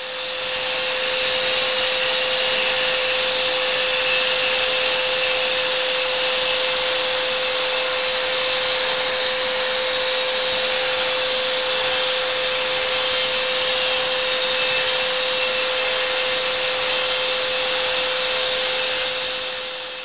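Delta benchtop sander with a narrow vertical belt running steadily, grinding down the edges of a molded leather sheath to thin them. It is a constant hum under a broad hiss.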